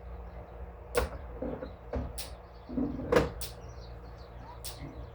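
Three sharp knocks, like a door or gate banging, about one, two and three seconds in, the last the loudest, over a steady low hum, with short high clicks now and then.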